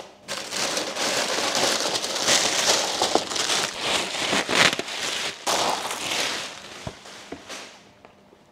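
Plastic packaging wrap being pulled off and crumpled: a continuous crackling, crinkling rustle that fades out near the end.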